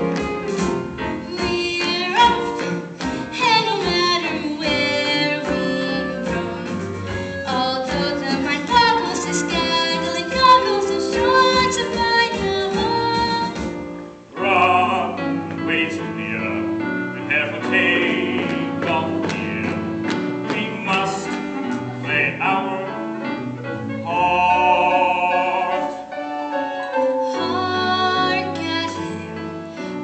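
A young cast singing a show tune together with instrumental accompaniment. The music dips briefly about halfway through.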